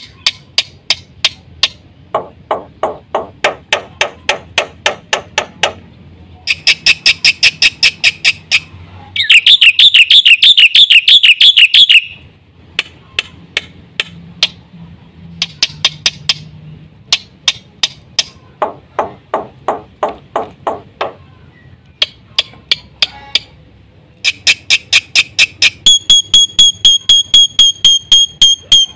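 Black-winged myna (jalak putih) singing: long runs of rapid, evenly repeated harsh notes, several a second. About nine seconds in comes a louder wavering buzzy trill, and near the end high steady whistled notes sound over the ticking.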